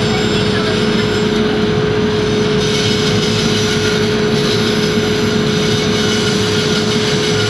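Band saw running and cutting through small blocks of light-coloured wood: a steady machine noise with a constant hum.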